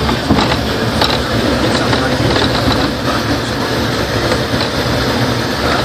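Steady road noise inside a moving car on a snowy road: low engine and tyre rumble with a constant rushing hiss.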